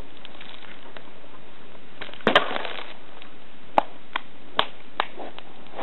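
Campfire of dry firewood burning: a clatter of wood about two seconds in, then four sharp pops of burning wood a fraction of a second apart.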